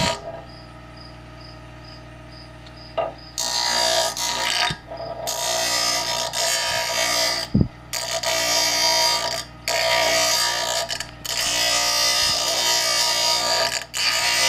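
Electric grinder motor running steadily, with five long bursts of grinding as the rough sawn end of a PVC pipe is pressed against it to smooth the edge, starting about three seconds in.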